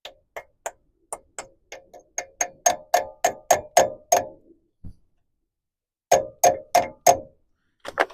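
Hammer tapping a metal wheel-hub dust cap onto the hub, sharp ringing metallic taps. A run of about fifteen comes at three to four a second, getting harder as it goes, then a pause and four more firm taps, with a couple more near the end.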